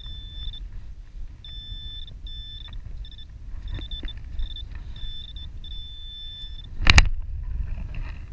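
Handheld metal-detecting pinpointer beeping as it is probed in wet sand: a high tone that sounds in short and longer pulses as it finds a buried metal target, over wind rumbling on the microphone. A single sharp knock near the end.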